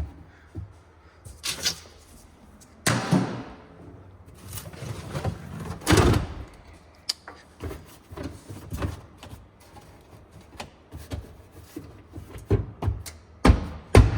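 Irregular clunks and knocks of hand tools on metal while a fuel line fitting is worked loose, the loudest knock about six seconds in and a quick run of knocks near the end.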